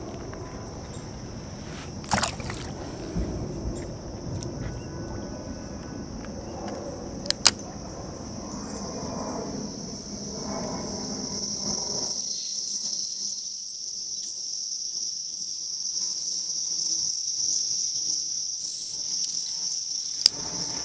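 A steady high-pitched insect chorus, louder in the second half. Over it, low rustling noise fills the first dozen seconds and then drops away, with two sharp clicks about two and seven seconds in.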